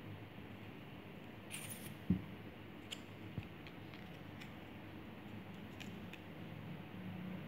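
Craft tools handled on a cloth-covered tabletop: a brief rustle, a single soft thump about two seconds in, then a few light clicks, over a faint low hum.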